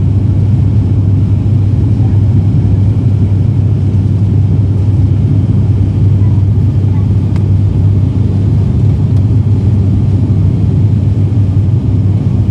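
Propeller airliner's engines running with a loud, steady low drone, heard inside the passenger cabin.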